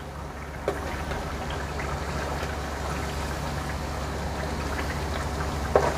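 Onions, spices and green chillies sizzling and bubbling in hot oil in a kadhai as they are stirred with a perforated metal spoon. The sizzle is a steady crackle, with a light clink of the spoon against the pan near the start and again near the end.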